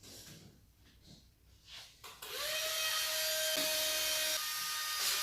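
SGILE wall-climber RC car's suction fan spinning up about two seconds in, with a short rising whine that settles into a steady high hum; the fan that holds the car to a wall or window.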